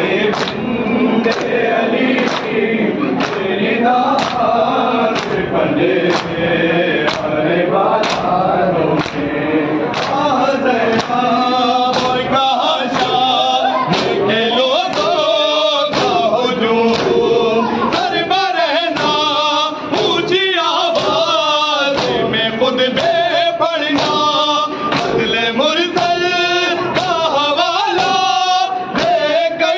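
Group of men chanting an Urdu noha over microphones, voices amplified in a hall. A steady beat of sharp hand-slaps on the chest (matam) keeps time under the chant.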